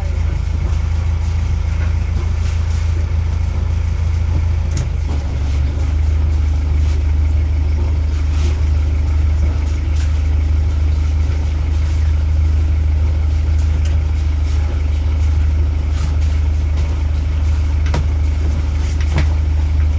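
Kent 28 motorboat's engine running at low revs while manoeuvring, a steady deep drone that picks up slightly about five seconds in. A few faint clicks or knocks sound over it.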